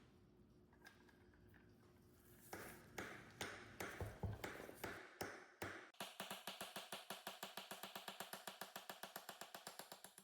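Hand work on metal grinder parts: scattered clicks and scrapes, then a fast, even run of scrubbing or scraping strokes, about ten a second, that cuts off suddenly at the end.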